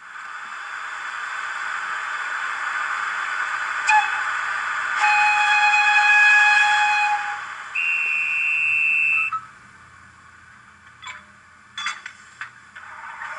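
Sound decoder of a Roco H0 model E94 electric locomotive, played through the model's small speaker: a steady hiss builds up, a click comes about four seconds in, then a whistle signal sounds as a chord of several tones for about two seconds, followed by a single high whistle tone for about a second. The hiss cuts off about three-quarters of the way through, and a few clicks follow near the end.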